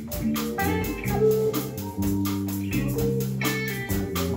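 Live band playing a song on electric bass, electric guitar, hand drum and keyboard, with held bass notes under a steady beat.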